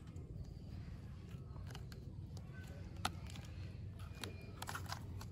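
Scattered faint clicks and creaks of hard plastic toy bicycle parts being pushed together as the handlebar is fitted, with one sharper snap about three seconds in.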